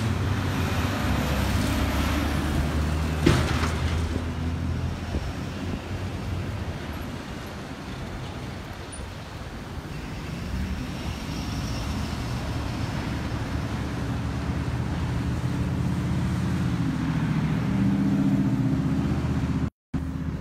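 Road traffic: motor vehicles running past, the engine sound swelling, fading and swelling again, with a single sharp knock about three seconds in. The sound cuts out for a moment near the end.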